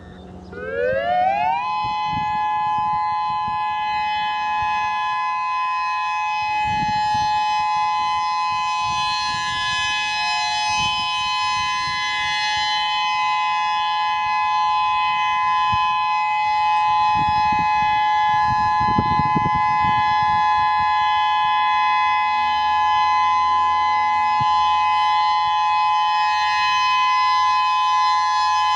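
Whelen 3016 electronic outdoor warning siren sounding its alert signal: it winds up in pitch quickly over about a second, then holds a loud, steady two-note tone.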